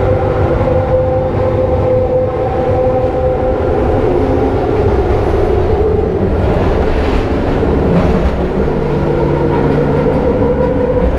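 Kelana Jaya Line LRT train running: a constant rumble with several steady whining tones that shift in pitch about halfway through.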